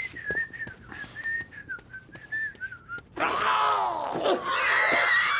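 A boy whistling a casual tune, a single wavering line of notes, for about three seconds. Then an old man's loud, strained vocal outburst, his reaction to the boy's strong perfume.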